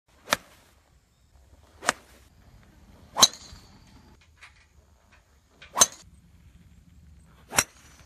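Golf clubs striking balls off driving-range mats: five sharp cracks, one every one and a half to two and a half seconds.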